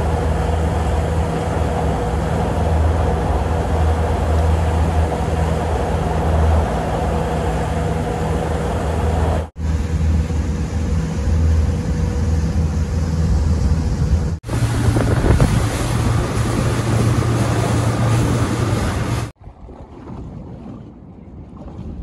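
Boat outboard motor running under way, a steady engine hum under the rush of wind on the microphone and water noise, in several cut-together stretches. After the second cut the engine note is higher, and near the end the sound drops much quieter.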